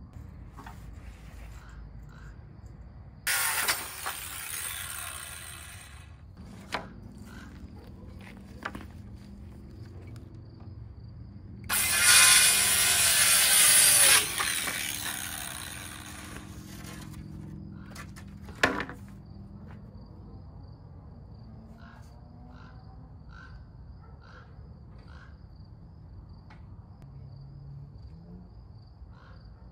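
Cordless circular saw cutting through wooden boards twice, a few seconds apart, each cut lasting about two seconds; after the second cut the blade winds down. A single sharp knock follows a few seconds later.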